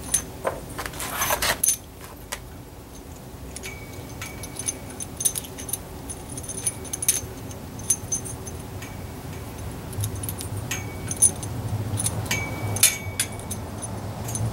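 Coax cable being coiled by hand against an aluminium antenna mast to form an RF choke: scattered light clicks and metallic rattles. A low rumble rises in the background about two-thirds of the way in.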